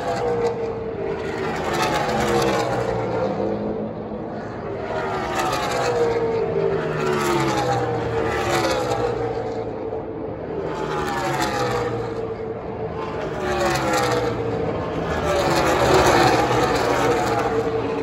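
NASCAR Cup Series cars' V8 engines passing one after another at pit-road pace, each pass falling in pitch as the car goes by.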